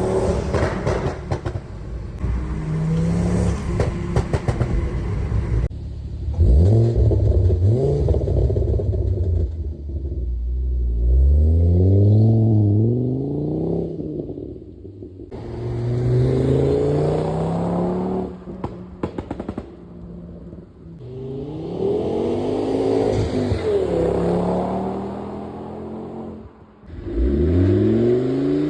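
Volvo C30 T5's turbocharged 2.5-litre five-cylinder engine through a catless downpipe and 3-inch cat-back exhaust, accelerating hard: the engine pitch climbs, drops at each gear change and climbs again, over several pulls. A few sharp crackles come through when the revs fall.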